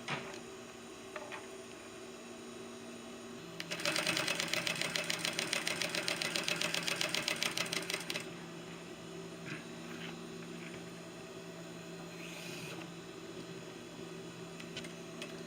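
Industrial sewing machine running a fast, even burst of stitching for about four seconds, starting a few seconds in. A steady hum runs underneath, with a few faint clicks after the stitching stops.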